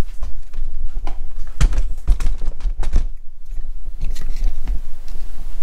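Handling noise from a handheld camera being moved: irregular clicks and scuffs over a low rumble.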